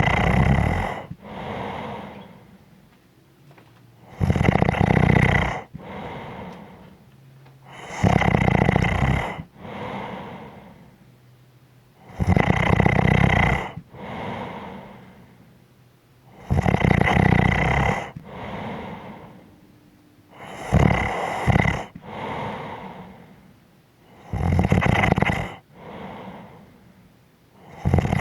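A person snoring in a slow, steady rhythm: a loud snore about every four seconds, each followed by a softer, fading breath.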